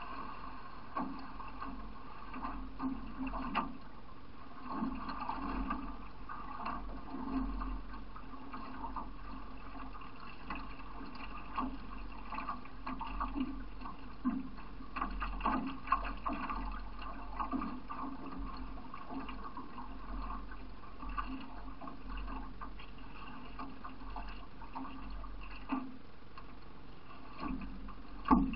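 Water splashing and gurgling along a racing canoe's hull as it is paddled downriver, with uneven swells of splashing every second or two from the paddle strokes. A sharp knock sounds just before the end.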